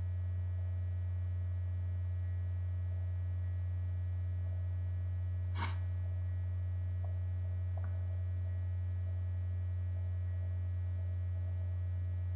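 Steady low electrical mains hum, with one sharp click about five and a half seconds in and two faint ticks shortly after.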